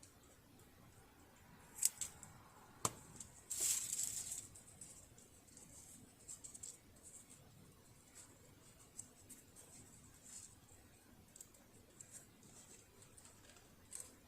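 Small clicks and taps of hands working on a partly disassembled sewing machine, with a sharp knock about three seconds in and a short hiss right after it.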